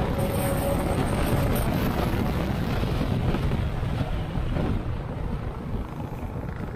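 Yamaha NMAX scooter with an RS8 CVT setup running on the move, its engine hum under a steady rush of wind and road noise, getting somewhat quieter about five seconds in.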